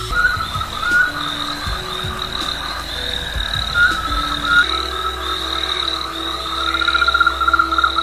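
Frogs croaking in a dense, continuous chorus, with a steady pulsing high trill running through it.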